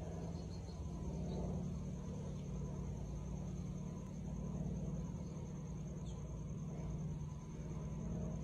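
Steady low outdoor rumble with a thin, steady high-pitched whine above it. The slow pour into the glass makes no distinct sound.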